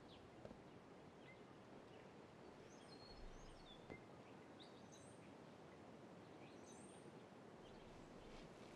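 Near silence: faint outdoor ambience with a few faint, short bird chirps in the middle.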